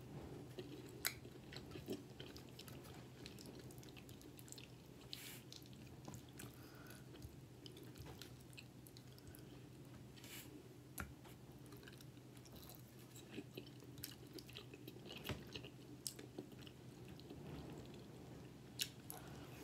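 Faint close-up chewing of cheese-covered fries and fried fish, with scattered soft mouth clicks over a steady low hum.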